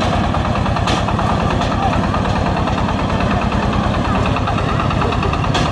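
Engine running steadily with an even, low rumble, with people's voices over it and a couple of sharp clicks.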